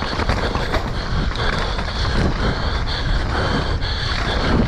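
Mountain bike ridden fast down a rough, muddy trail: a steady rumble and rattle of tyres and frame over the ground, with a high buzz from the bike that starts and stops in short spells.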